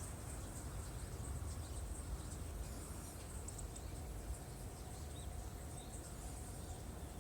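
Quiet outdoor ambience: a steady low rumble with faint, high bird chirps here and there.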